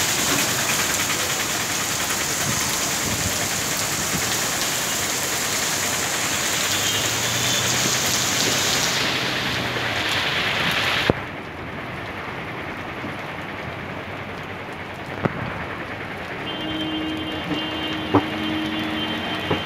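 Heavy rain pouring down on a street, a steady hiss, with traffic moving on the wet road. About eleven seconds in the hiss drops suddenly to a lower level, and a few sharp taps and a brief pitched tone come near the end.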